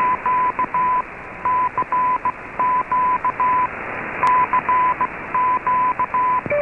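Morse code in dots and dashes, keyed as a single-pitch beep, heard through a shortwave receiver over a steady hiss of static. This is the signal from Radio Havana Cuba's 15140 kHz broadcast received on an Icom IC-R8600. One sharp click sounds a little past the middle.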